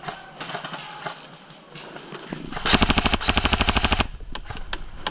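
Airsoft rifle firing one rapid full-auto burst of about a second and a half, a little past halfway through, with scattered softer clicks and pops around it.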